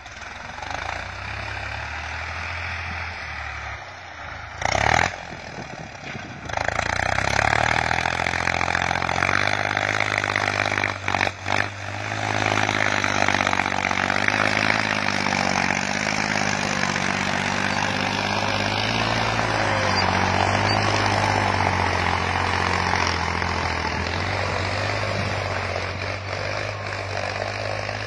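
New Holland farm tractor's diesel engine running steadily under load as it pulls a tillage implement through the soil. A brief loud thump comes about five seconds in, a few short knocks around eleven seconds, and a steady hiss joins from about six seconds in.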